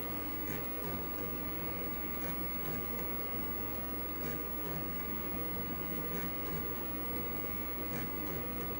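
Vintage IBM PC disk drives working through a DOS copy: irregular mechanical clicks and chatter from the heads of the 5¼-inch floppy drive reading and the 20 MB MFM hard disk writing, with verify on so every file is read back. Under it runs the machine's steady hum and whine.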